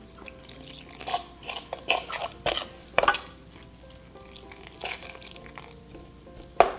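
A metal spoon scraping and clinking against a stainless steel mixing bowl as water is poured onto flour and stirred in, a few irregular clinks over quiet background music.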